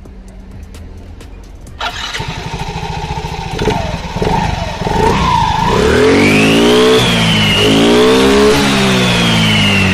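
Yamaha Mio 110 fuel-injected scooter engine starting about two seconds in, then revved up and let down twice with the CVT cover off and the belt and pulleys spinning, a test run of the CVT after its roller tracks were scraped. A high whine rises and falls with the revs.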